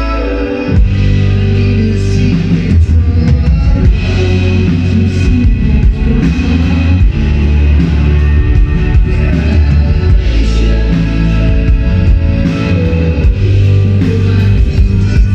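Rock band playing live, with drums and bass coming in hard about a second in over acoustic guitar and keyboard.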